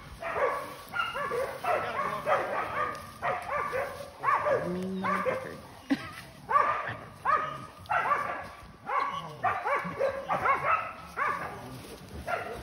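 Hog-hunting dogs barking over and over, about one to two barks a second without a break, the excited barking of dogs bayed up on a hog.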